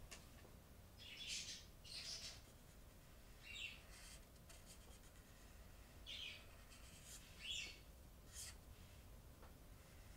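A felt-tip marker pen drawing letters on flip-chart paper: faint, short squeaky strokes, about half a dozen spread unevenly, each well under a second.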